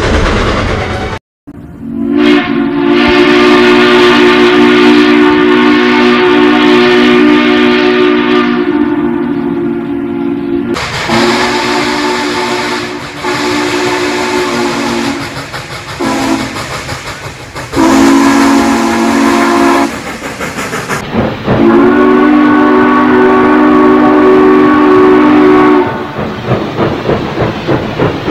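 Steam locomotive chime whistles blowing four long blasts, each sounding several notes at once. The first blast lasts about eight seconds and the last about four.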